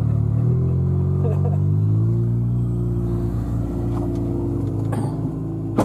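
Engine of a Polaris side-by-side UTV running as it rolls slowly past, its pitch rising over the first couple of seconds and then easing down. A short sharp click near the end.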